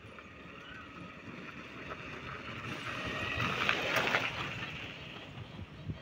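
Battery e-rickshaw passing close by, its rattle and tyre noise rising to a peak about four seconds in and then fading, with wind on the microphone.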